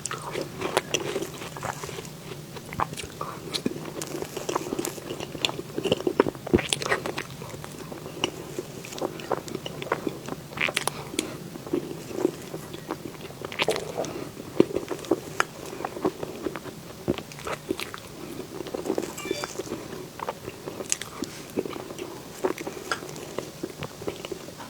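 A person biting and chewing watermelon mille-crepe cake close to the microphone: mouth and eating sounds with many short, irregular sharp clicks.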